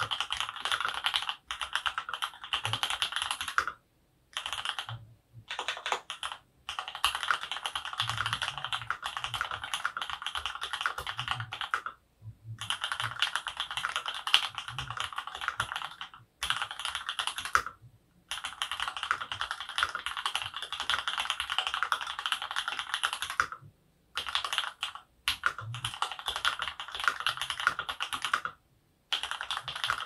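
Typing on an Archon RE:AL Platinum FX mechanical keyboard with stock, factory-lubed Durock Lavender linear switches on an aluminium plate: fast, dense keystrokes in runs of a few seconds, broken by short pauses.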